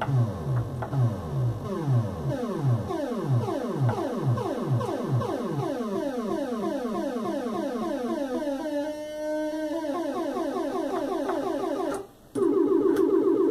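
Modular synthesizer patch of three oscillators, two of them used as LFOs to frequency-modulate the third: a repeating, sweeping electronic tone whose pulses come faster and faster as the knobs are turned. Near the end it cuts out for a moment and comes back as a steady, dense buzzing tone.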